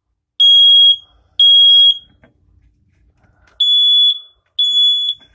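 Family Guard smoke alarms beeping on test with a shrill, steady high tone. There are two loud beeps about a second apart, then after a gap two more at a slightly higher pitch.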